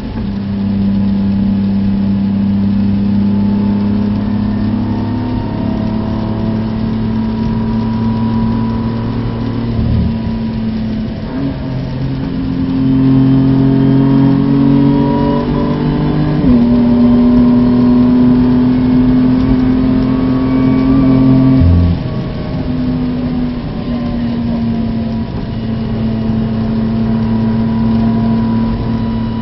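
BMW F80 M3's twin-turbo straight-six engine pulling hard at high speed, heard from inside the cabin over steady tyre noise from the wet track. The engine note climbs, drops sharply at a gear change about halfway through, and eases off and quietens a few seconds later.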